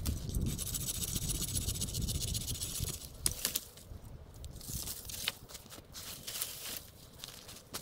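Footsteps crunching through crusty snow and dry leaves, a dense rustle at first, then scattered single crunches.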